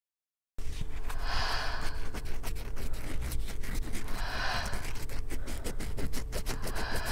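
A person breathing slowly and deeply: three breaths about three seconds apart. Under them runs a dense, steady crackle and a low hum that cut in suddenly out of dead silence just after the start.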